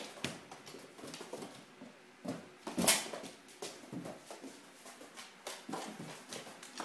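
Ridgeback puppy playing with a balloon on a tiled floor: an irregular run of short knocks and scuffs from claws, muzzle and the balloon, the loudest about three seconds in.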